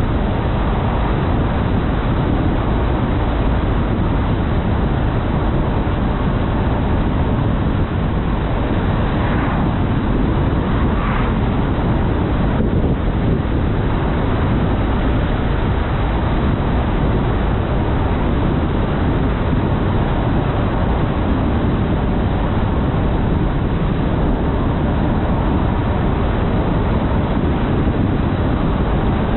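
A car driving at road speed: a steady, unbroken rumble of tyre and wind noise.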